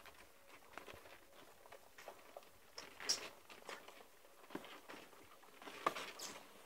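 Faint scuffling and scratching of 17-day-old Appenzeller Sennenhund puppies moving about, a run of light clicks and scrapes with two louder scrapes, about three seconds in and about six seconds in.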